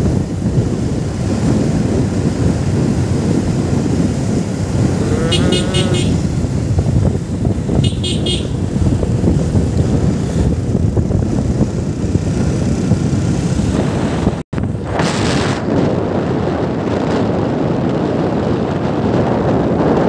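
Steady wind and road rumble of a moving vehicle heard from on board, with two short horn toots about five and eight seconds in. The sound drops out for an instant about fourteen seconds in.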